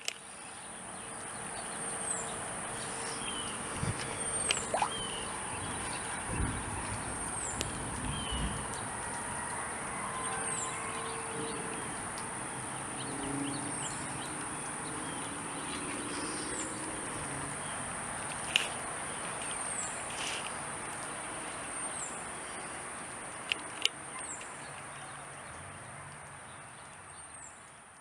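A steady, very high-pitched whine, unexplained by the recordist, that dips briefly in pitch about every two to three seconds. It sits over a constant hiss, with a few sharp clicks and low thuds.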